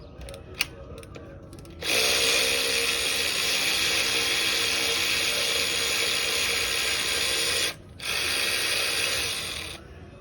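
Handheld power tool, such as a power ratchet or drill, spinning bolts out of an engine during teardown, running steadily for about six seconds, stopping briefly, then running again for about two seconds.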